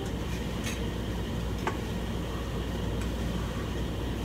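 Steady low hum and hiss, with two faint clicks of a wooden spoon against a small saucepan as sugar melting for caramel is stirred.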